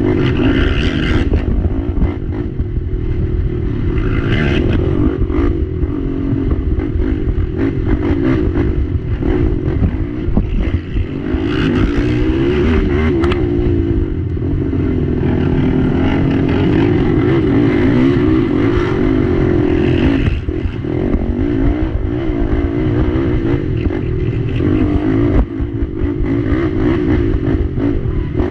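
Racing ATV engine running hard throughout, its pitch rising and falling as the throttle is worked. Scattered knocks and clatter from the quad bouncing over rough dirt and rocks run through it.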